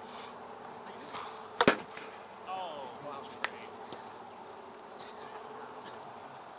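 Sharp knocks of ball play, a loud double click about one and a half seconds in and a single crack about three and a half seconds in, over a steady buzzing drone like an insect.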